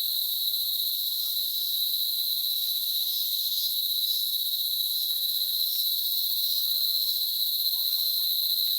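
Cicadas singing in trees: a continuous, steady high-pitched drone that does not let up.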